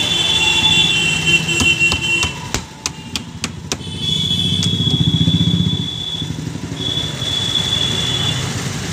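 A small engine running steadily, with a quick run of sharp clicks about three seconds in and a high steady tone that comes and goes.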